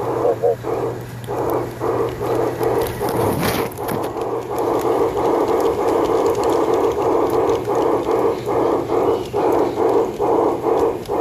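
LGB garden-scale steam locomotive chuffing steadily, an even rhythm of about three chuffs a second, with the train running along the track. A brief scraping crackle about three and a half seconds in.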